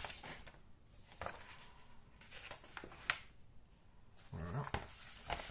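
Pages of a paper model-kit instruction booklet being turned, the paper rustling and flapping in several separate rustles. A brief low voiced hum comes about four and a half seconds in.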